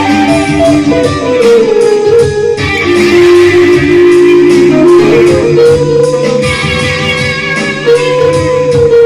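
Band music in an instrumental passage: electric guitar playing long held notes over a steady low beat, with no singing.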